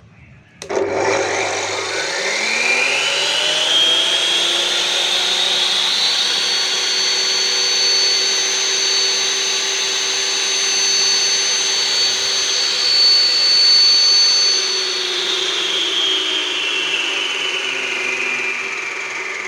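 Electric concrete cutter (3200 W, 14-inch blade) switched on under no load, its motor and blade whining up to speed over several seconds and running steadily in free air. About two-thirds of the way through it is let go and the whine falls as it winds down.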